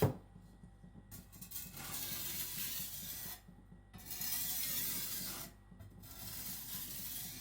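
Chinese cleaver blade stroked across a wet whetstone with barely any pressure, a light finishing pass after raising a burr. It makes three scraping strokes, each one to two seconds long, with short pauses between them.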